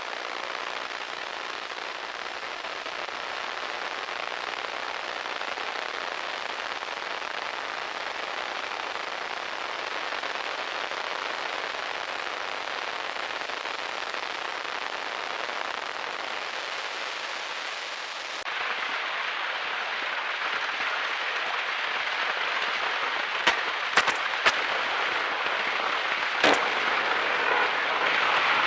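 Old radio static: a steady crackling hiss. About two-thirds through it changes character, turning a little louder and duller on top. After that come a few sharp pops and crackles.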